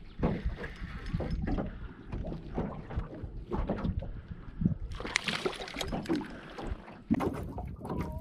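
Small waves slapping against an aluminum boat's hull in short, irregular knocks, with wind buffeting the microphone. A louder rush of noise comes about five seconds in.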